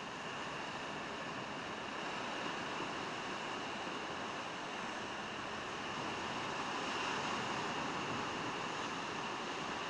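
Sea surf breaking on a rocky shore: a steady rush of noise that swells about six seconds in.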